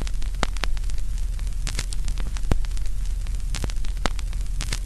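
Old-film crackle effect: irregular clicks and pops over a steady hiss and low rumble.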